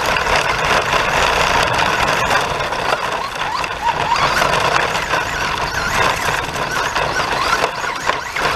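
Traxxas Rustler electric R/C truck driving fast over dirt, heard from a camera mounted on the truck: a constant rush and rattle of tyres and grit, with a motor and gear whine that rises and falls with the throttle.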